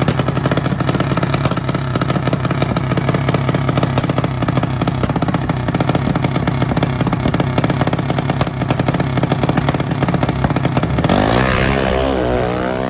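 Methanol-fuelled racing mini bike engine running loud and fast while held at the drag-strip start line, its clutch not engaging. About eleven seconds in it launches and revs away with rising pitch, alongside a Harley-Davidson Road Glide.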